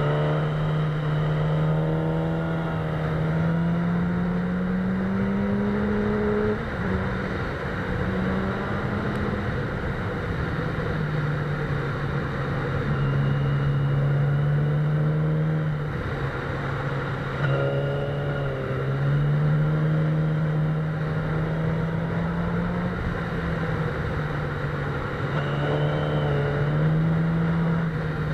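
Sport motorcycle engine running under way, its pitch rising and falling with the throttle and dropping sharply several times, over steady wind rush.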